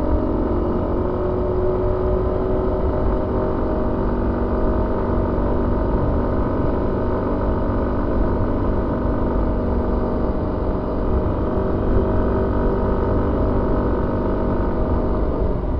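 Suzuki Avenis 125 scooter's single-cylinder four-stroke engine running at fairly steady revs while being ridden, with a low rumble of wind and road noise underneath. The engine note eases slightly lower near the end.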